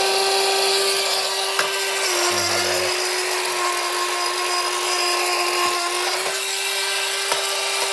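Bump-and-go toy car's electronic siren sound playing from its little speaker: a steady, buzzy tone that steps slightly down in pitch about two seconds in and back up about six seconds in, with a higher tone joining in the middle, over the constant whir of the toy's battery drive motor and plastic gears.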